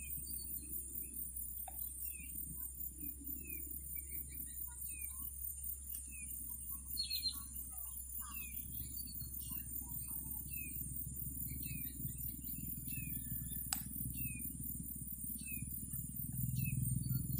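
Small birds chirping: quick falling chirps repeated every second or so, over a faint steady low hum, with one sharp click about three-quarters of the way through.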